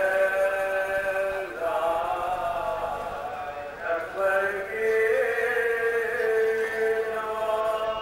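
Male voice chanting a marsiya, an Urdu elegy for Imam Husain, in long drawn-out melodic notes that shift pitch about a second and a half in and again near the middle.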